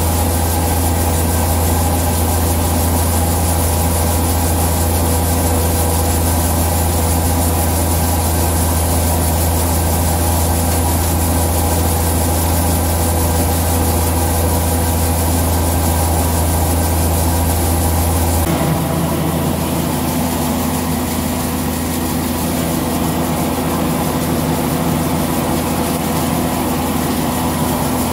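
Maan soybean thresher running steadily while threshing, with a loud constant drone; about two-thirds of the way through, the deep hum drops and the pitch of the drone shifts.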